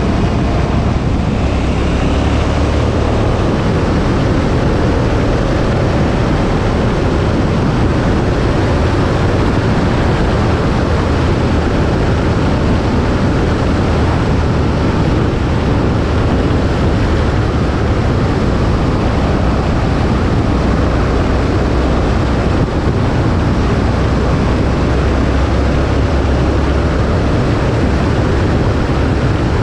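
Steady wind rush on the microphone from a KTM 1290 Super Adventure motorcycle at road speed, with its V-twin engine running underneath.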